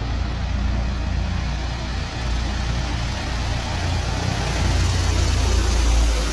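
Guardia Civil helicopter flying low past, a steady low rotor thrum that grows louder toward the end as it comes closer.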